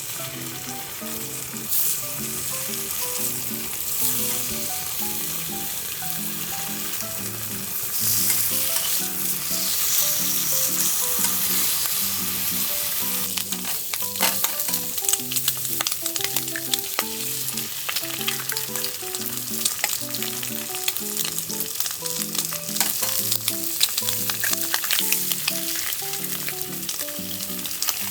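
Food frying in a hot pan: a steady sizzle that grows louder about eight seconds in, then turns to dense spitting crackle. Soft background music plays underneath.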